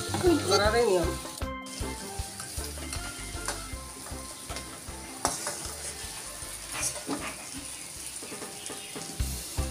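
Taal (palm-fruit) batter fritters sizzling in hot oil in a metal wok, with the spatula now and then clicking and scraping against the pan as the browned fritters are turned and lifted out.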